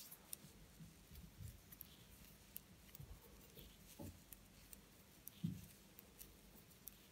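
Near silence, with faint scattered clicks and soft taps of knitting needles and yarn being worked by hand.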